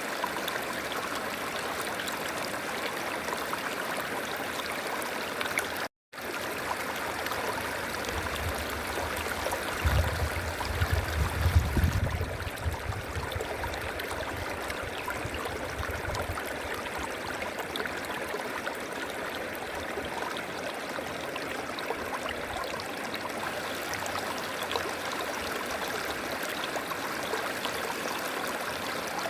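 River water flowing steadily. It cuts out for a split second about six seconds in. From about eight to sixteen seconds a low rumble rises under the water, loudest around eleven seconds.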